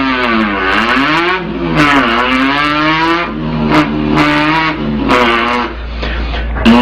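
A person imitating a revving car engine with his mouth, a buzzing voiced engine noise that swoops up and down in pitch several times like gear changes, then holds a steadier lower note.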